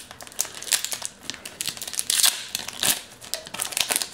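Pokémon TCG booster pack's foil wrapper being torn open and crinkled by hand: a quick run of sharp crackles, loudest about two seconds in.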